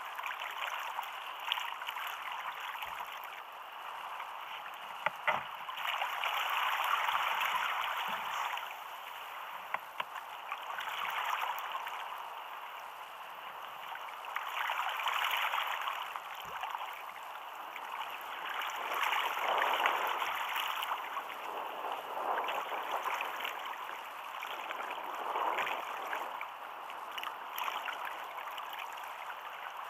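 Choppy sea water sloshing and washing against a sit-on-top fishing kayak's hull, swelling and easing every few seconds as waves pass, with a few faint knocks.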